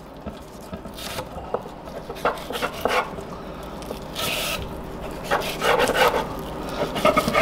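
Fillet knife scraping and rubbing on a bamboo cutting board while skinning a yellow perch fillet: a run of short scrapes and light taps, with a longer, brighter scrape about four seconds in and a busier patch of scraping near the end.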